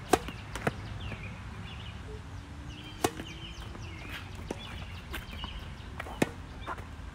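Tennis ball struck by rackets and bouncing during a doubles point: a sharp pop from the serve just after the start, then single strikes and bounces at intervals. The loudest is a close backhand about six seconds in. Birds chirp faintly in the background.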